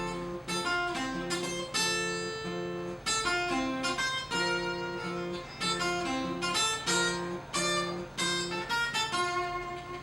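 Unamplified acoustic guitar playing an instrumental break: picked notes and strummed chords over a steady, repeating bass note, fading a little near the end.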